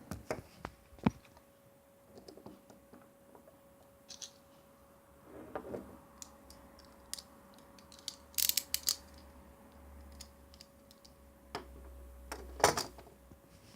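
Small hard objects being handled and set down: scattered clicks and light knocks, with a quick cluster of clicks a little past the middle and a louder knock near the end, over a faint steady hum.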